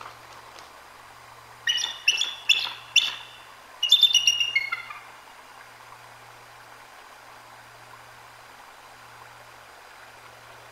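Bald eagle calling: four sharp, high piping notes about half a second apart, then a quicker burst of chattering notes that fall in pitch at the end.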